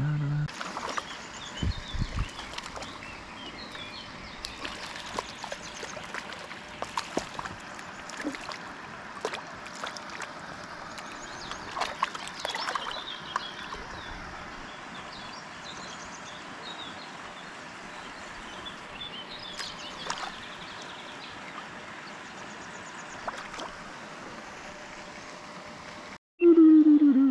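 River current flowing and gurgling steadily, with scattered short splashes and clicks and small birds chirping now and then. Near the end the sound cuts out briefly, then a short, loud sound with a falling pitch begins.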